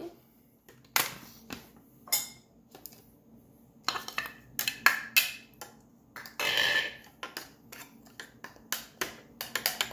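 Hard plastic clicks and knocks as a small food processor's lid is twisted off its bowl, then a utensil scraping and tapping against the plastic bowl through chili paste, with a quick run of taps near the end.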